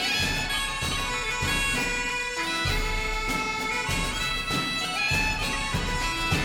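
Instrumental background music: a held, droning wind-instrument melody over low drum hits.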